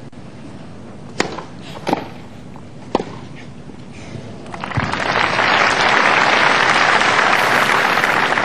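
Three racket strikes on a tennis ball, a serve and two shots, spaced about a second apart. About four and a half seconds in, a large crowd breaks into loud applause as the point ends, and it keeps going.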